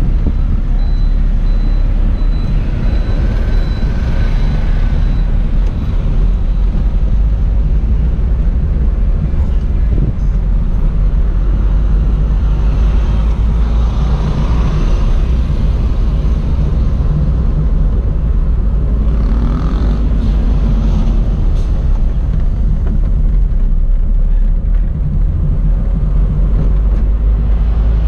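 Mitsubishi Lancer Box (A172) on the move, heard from inside the cabin: engine and road noise as a steady low rumble, with surrounding traffic mixed in.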